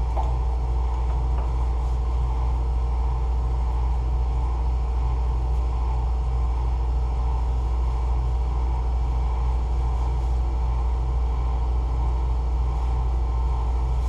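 Shop air compressor running: a steady low drone with a fast throbbing beat underneath.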